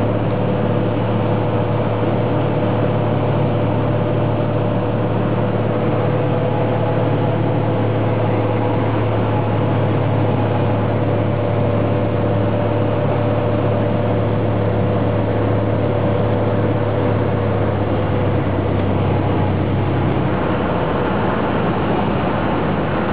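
Cessna 182's piston engine and propeller droning steadily at approach power, heard inside the cockpit. The low drone eases off near the end as the plane comes over the runway.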